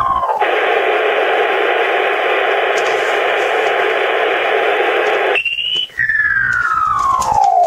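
Shortwave receiver in SSB mode giving about five seconds of band-limited static hiss. Near the end comes a brief rising tone, then a short dropout and a falling whistle as the drifting humming signal sweeps down in pitch.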